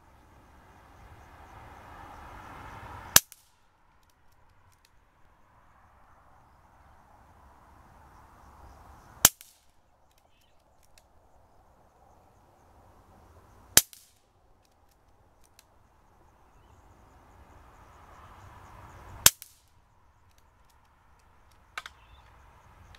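KalibrGun Cricket .22 PCP air rifle firing four shots, one sharp report every five seconds or so, then a softer crack near the end. Faint clicks come between the shots.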